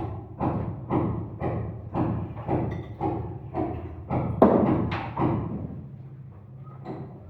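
Steady, even thumps about twice a second over a low hum, with a louder hit about halfway through.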